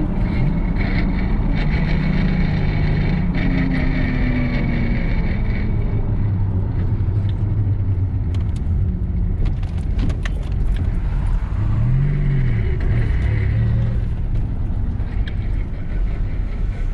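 Turbocharged Buick 3.8-litre V6 of a VR Commodore ute running under way with road noise. Its pitch rises and falls once about twelve seconds in, and there are a few faint clicks near the middle.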